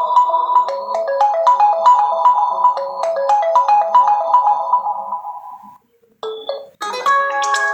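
Realme C21Y phone alarm tones: a quick, repeating melody of short notes fades out about five and a half seconds in. After a brief gap, a different, brighter tone starts near the end.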